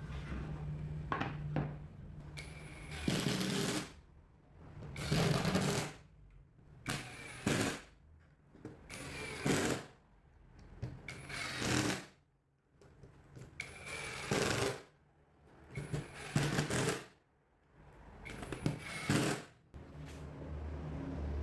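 A power tool run in short bursts, about nine of them of roughly a second each, with brief pauses between.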